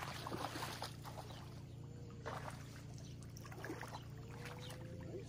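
Shallow lake water splashing and trickling in small irregular bursts at the shoreline, over a steady low background hum.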